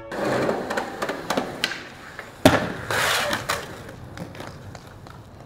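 Skateboard wheels rolling on concrete, then one loud slap of the board landing a jump down a gap about two and a half seconds in. The wheels roll on afterwards, with a few lighter clacks.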